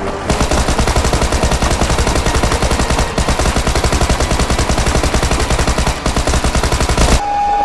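Automatic gunfire sound effect: one long, rapid, even burst of machine-gun fire that starts a moment in and cuts off suddenly near the end.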